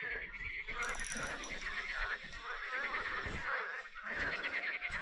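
A chorus of frogs calling continuously, many overlapping repeated croaks, with a few low knocks underneath.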